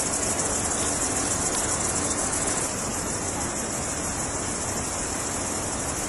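Continuous high-pitched shrilling of an insect chorus, steady and unbroken.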